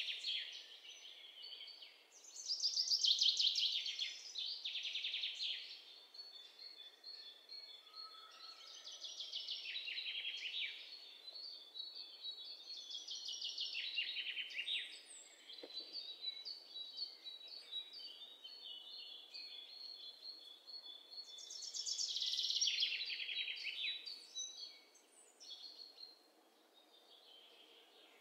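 Birds chirping in rapid, rattling trills, with several louder spells of song a few seconds apart, over a faint steady hiss.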